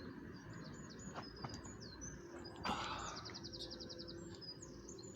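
Small birds chirping outdoors, short high calls scattered throughout, with a rapid trill about three seconds in. A brief rustling noise about two and a half seconds in is the loudest moment.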